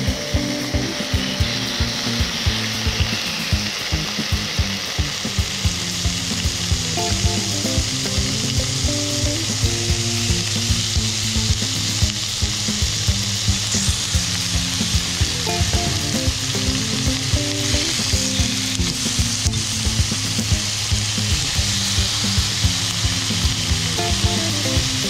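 Pork chunks sizzling in hot oil in a nonstick frying pan as they are browned, the sizzle thickening about six seconds in as more pieces go into the pan. Background music with a steady beat plays underneath.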